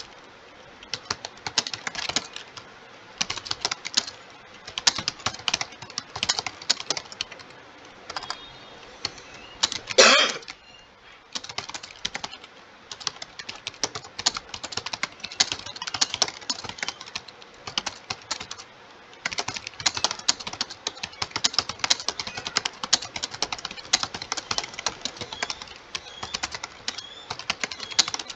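Computer keyboard typed on quickly and continuously in a rapid, irregular stream of key clicks, as in a timed typing test at about 60 words a minute. About ten seconds in, a single brief, louder noise stands out, and the typing stops for a moment before resuming.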